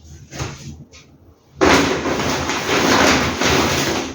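Plastic grocery bag rustling and crinkling loudly as produce is pulled out of it, starting about one and a half seconds in after a brief light rustle.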